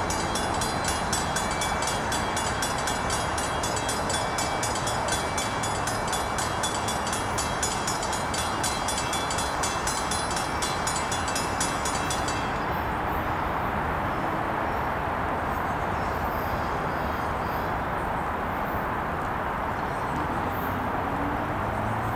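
Grade-crossing bell ringing fast and evenly, about three strikes a second, over the steady running noise of a SEPTA electric commuter train. The bell stops suddenly about twelve seconds in, while the train noise carries on.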